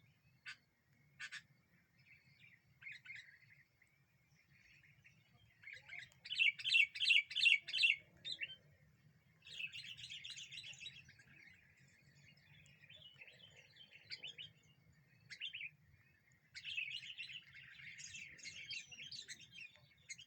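Sooty-headed bulbul (kutilang) singing in bursts of quick chattering notes, loudest about six seconds in, with further phrases about ten seconds in and near the end. A faint low hum lies underneath.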